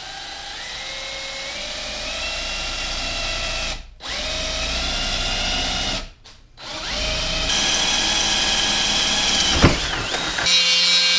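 Cordless drill boring holes in a thin sheet-steel panel: the motor whine rises in pitch as it spins up, in three runs broken by two short stops. Near the end the sound turns harsher and hissier.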